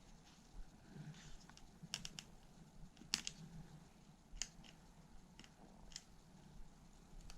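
Faint, scattered clicks and ticks of small parts being handled while a laptop is taken apart, with a quick cluster of clicks about two seconds in and single ones every second or so after.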